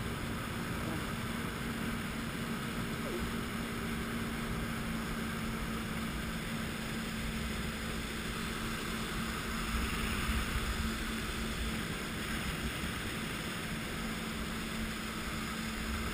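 Jet ski engine running steadily at speed, a constant drone over the rush of water churning in its wake, swelling slightly about ten seconds in.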